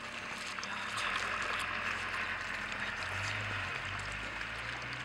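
A litter of Labrador retriever puppies eating together from bowls: a dense, steady wet lapping and chewing, with scattered small clicks.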